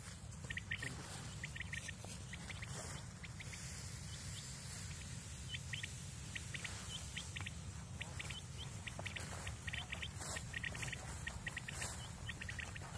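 Birds calling in short, high chirps, in quick clusters of two to five notes that repeat all through, over a steady low rumble.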